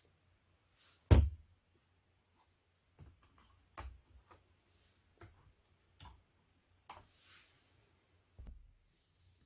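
Handling sounds during a bench repair: a series of sharp clicks and knocks, seven or so, spaced irregularly about a second apart, the loudest about a second in.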